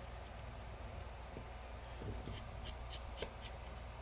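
Precision screwdriver working the tiny screws of an iPhone 11 screen assembly's top bracket: faint scattered light ticks and scrapes of the bit on the screws, more of them in the second half.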